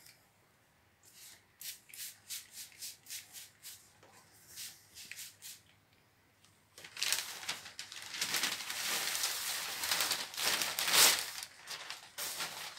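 Packing paper handled in a cardboard box: a string of short crinkles at first, then, about seven seconds in, sustained rustling and crumpling as the paper is pulled out, loudest near the end.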